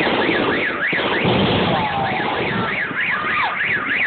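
A car alarm warbling rapidly up and down, about four sweeps a second, over a dense noisy din from the fireworks display.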